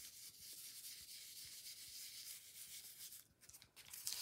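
Round stencil brush scrubbing paint through a plastic stencil onto paper: a faint, continuous dry rubbing for about three seconds, then a few separate short dabs near the end.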